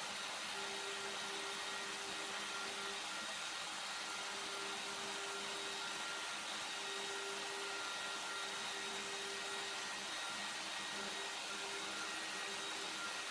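DeWalt 611 compact router running at about 9900 rpm on a CNC machine, its end mill cutting pockets in a sheet. A steady motor whine, with a low tone that comes and goes as the bit cuts.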